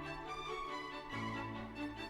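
Background music with sustained string-like notes.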